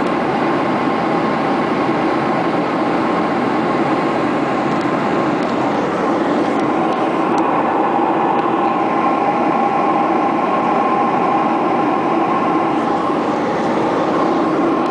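Steady cabin noise of a Boeing 737-800 airliner in flight: a constant rush of airflow and jet engine hum, with faint steady tones running through it.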